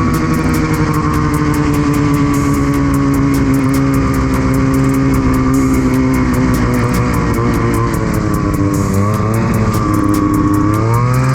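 Ski-Doo snowmobile engine running under way, its pitch slowly easing down, dipping about nine seconds in, then rising again as the throttle opens near the end.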